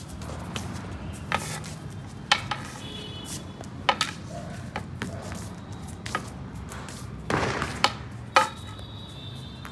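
About half a dozen sharp knocks and taps on a concrete floor, irregularly spaced, with a short scuffing sound a little before the last two.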